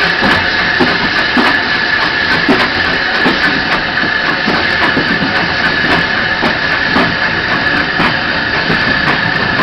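LBSC Terrier 0-6-0 tank engine running slowly, heard up close from the brake van it is pushing: a steady hiss of steam over a run of irregular knocks and rattles from the wheels and couplings.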